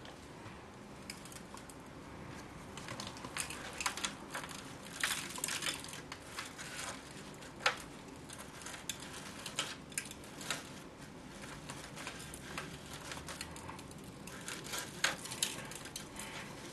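Fingers crumbling and sprinkling gritty potting mix into a plastic plug-tray cell and pressing it down around a rooted willow cutting: irregular soft rustling and gritty crackles with scattered sharp clicks.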